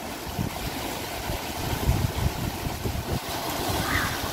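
Wind buffeting a phone microphone in irregular low rumbles over a steady outdoor hiss.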